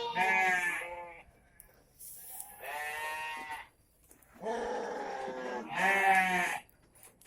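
Goats bleating: about four separate calls with short pauses between them.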